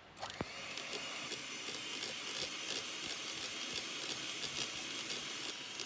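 Electric hand mixer starting up and running steadily, its beaters whisking cream and condensed milk in a plastic jug. The motor whine rises just after the start and then holds steady.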